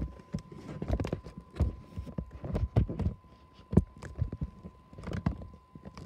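Irregular low thumps and rumbles on the microphone, starting suddenly and going on in uneven knocks, with a faint steady high tone underneath.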